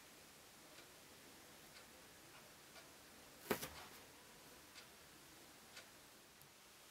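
A clock ticking faintly about once a second in a near-silent room, with one sharper click about three and a half seconds in.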